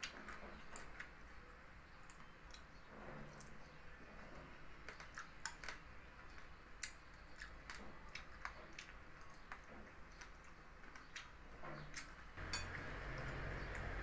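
Small, irregular clicks and crunches of eating: chopsticks tapping a plate and chewing crunchy shredded green papaya salad. A steady low hum comes in near the end.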